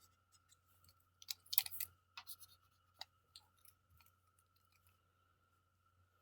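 Short scratchy strokes and clicks of small close-up handwork, loudest in a quick cluster just over a second in, then sparser clicks that fade out, over a faint steady high hum.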